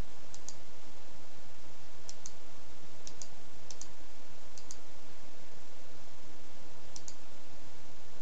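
Computer mouse clicks, in quick press-and-release pairs, about six times at irregular intervals over a steady microphone hiss.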